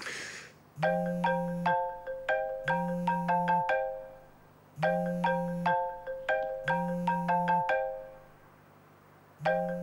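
Smartphone ringtone for an incoming call: a marimba-like melody of quick notes, played in paired phrases that repeat about every four seconds, with a low hum under each phrase. The ringing starts about a second in and begins again near the end.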